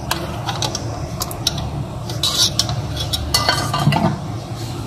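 A metal spoon stirs and scrapes thick spinach curry in a metal pot, with scattered clinks against the pot. Near the end a metal lid is set on the pot.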